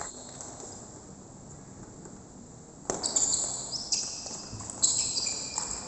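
Table tennis rally: after a quiet few seconds, the ball starts clicking sharply off the bats and table about three seconds in. A string of several hits follows at uneven spacing.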